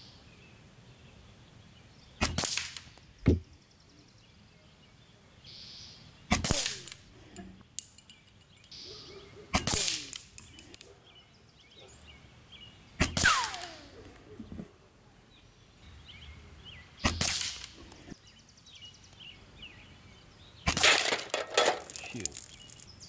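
Benjamin Armada semi-automatic .22 PCP air rifle fired about seven times, a few seconds apart, each shot a sharp crack, with a quicker pair of shots near the end. Pellets striking steel spinner targets and cans give metallic pings and clangs, one of them ringing on with a falling tone.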